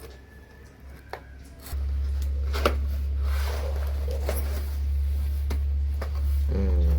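Cardboard keyboard box and its packaging being opened and handled: scattered clicks, scrapes and rustles. About two seconds in a loud, steady low hum starts abruptly and stays, louder than the handling.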